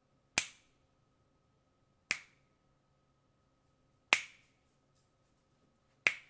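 Four sharp hand claps or snaps, one about every two seconds, each a single crack with a short decay. They are test sounds meant to trip a clap-sensor circuit and toggle an LED.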